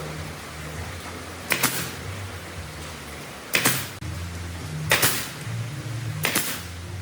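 Four sharp knocks, about a second and a half apart, over background music with a low, stepping bass line.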